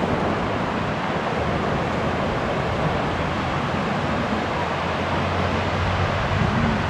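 Steady rush of ocean surf and wind. A low engine hum comes in about halfway through, with a brief rise and fall in pitch near the end.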